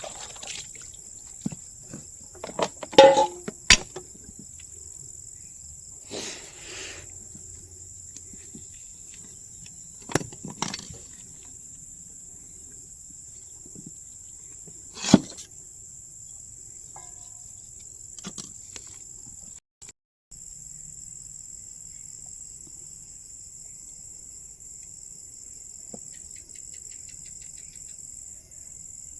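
Steady high-pitched insect drone, like crickets, with a few scattered knocks and clatters. The loudest knocks come about 3 seconds in and about 15 seconds in.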